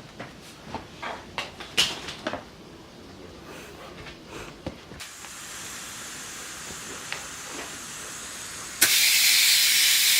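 Clicks and plastic rustling from handling the vacuum bag, then a faint hiss, and nearly nine seconds in a loud steady hiss of compressed air starts abruptly. The air is rushing through the compressor-driven venturi vacuum valve, which is drawing suction on the PVC veneering bag.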